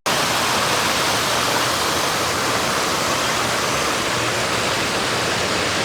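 Steady rush of water, even and unbroken, starting suddenly.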